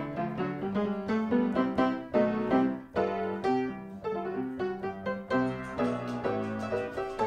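Background piano music: a light tune of quick, evenly struck notes.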